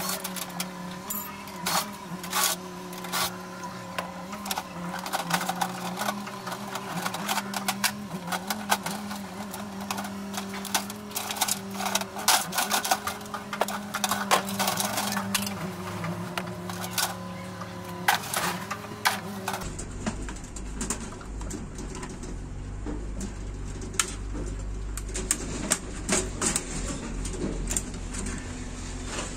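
Clicks, knocks and rattles of hands working inside a steel PC case, pulling plastic power connectors and working the CPU heatsink loose, over a steady hum. About two-thirds of the way through, the hum gives way to a low rumble.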